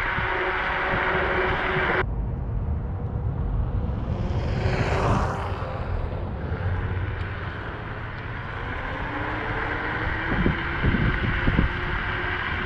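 Wind noise and road rumble while riding an Apollo Ghost electric scooter at speed, with a faint steady whine. About two seconds in the sound cuts abruptly to a quieter scene, where something passes by with a brief rising-and-falling whoosh. The riding rumble, with a few thumps, builds again toward the end.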